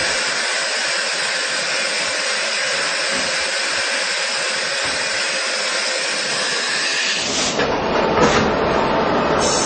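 Heckert CW 1000 horizontal machining centre at work: a loud, steady hiss for about seven seconds that stops abruptly, followed by a fuller mechanical running noise with a few clunks near the end.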